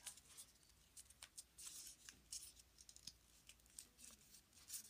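Faint, irregular crinkles and ticks of a small square of paper being folded and creased by hand.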